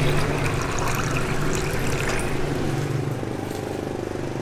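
Coconut water poured from a plastic jug into a plastic cup, splashing and trickling, until the pour tails off about two seconds in. A steady low engine-like hum runs underneath.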